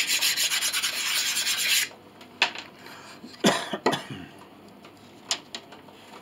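Rapid back-and-forth strokes of a file on a wooden pinblock piece, shaping its edge, which stop sharply about two seconds in. A few knocks and clicks follow as the piece is handled.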